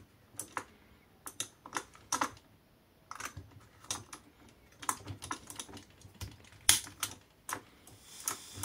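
Campingaz Bivouac gas stove being lit: a string of sharp, irregular clicks, roughly two a second, as the ignition control at the base is worked. A hiss of gas builds near the end.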